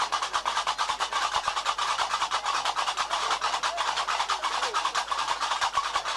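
Fast percussion music with a steady, driving rhythm of sharp strokes, about eight a second, keeping an even pace and level.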